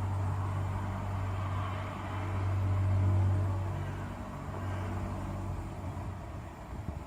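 A low, steady droning hum of the kind recorded as a mysterious 'sound in the sky'. It swells to its loudest about three seconds in and fades near the end.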